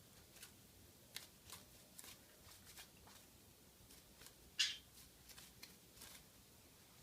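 Near silence: room tone with a few faint soft clicks and one brief hissing puff about four and a half seconds in.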